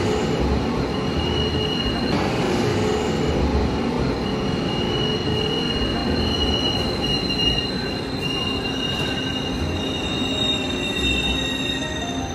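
Taiwan Railways Tze-Chiang express train rolling slowly along the platform as it pulls in. A high, steady squeal from the train's running gear sits over a continuous low rumble, with occasional low thumps from the bogies.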